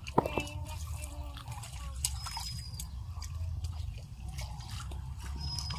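Shallow muddy water dripping and splashing around bare feet wading through mud, with scattered small clicks and a sharp knock just after the start.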